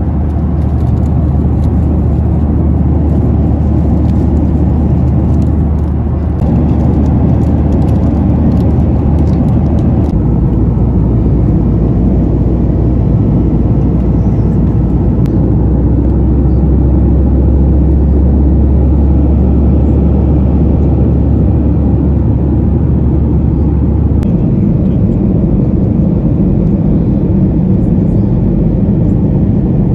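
Boeing 737-900ER cabin noise in flight: the steady low rumble of the jet engines and airflow over the fuselage. The rumble shifts in pitch and level about a third of the way in and again near the end.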